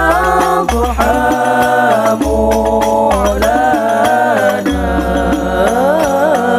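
Hadroh ensemble: a group of boys' voices singing long notes that glide and waver, over rebana frame drums slapped in rhythm and deep bass-drum strokes.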